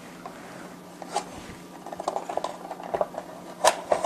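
Small clicks and knocks of a metal front panel and bundled wires being handled as the panel is fitted onto an aluminium project box, with a sharper click near the end. A faint steady hum runs underneath.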